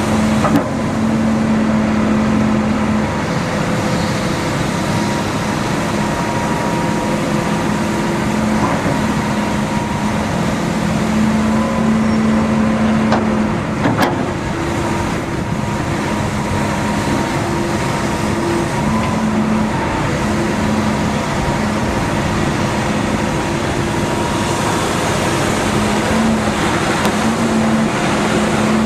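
Diesel engine of a John Deere 892E LC excavator, a six-cylinder turbocharged diesel, running steadily, with a humming tone that comes and goes. There is a sharp click about halfway through.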